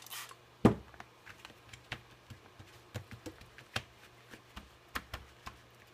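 A sharp knock about half a second in, then scattered light clicks and taps as hands with long fingernails press and pat a sheet of wet, glycerine-soaked craft card flat on the table.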